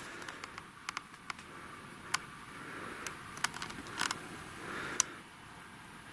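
Handling noise: a scattered series of light clicks and taps, about eight in all, over faint room noise.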